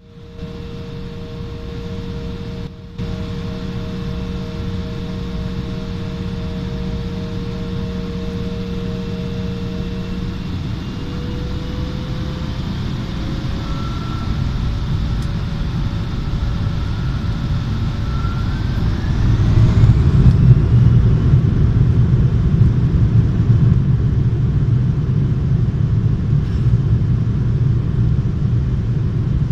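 Jet airliner's engines heard from inside the cabin over the wing: a steady whine over a low rumble, the whine rising in pitch from about a third of the way in and climbing steeply near two-thirds in as the rumble grows louder, the sign of thrust being increased on the engines.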